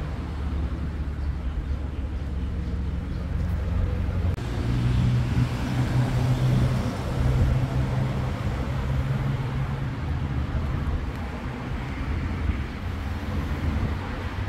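Street traffic: a motor vehicle's engine hum that swells from about four seconds in, is loudest a few seconds later, then fades, as if a vehicle passes by.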